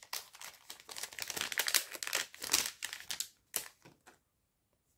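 Clear plastic blister packaging crinkling and crackling as a replacement phone battery is unpacked by hand, stopping about four seconds in.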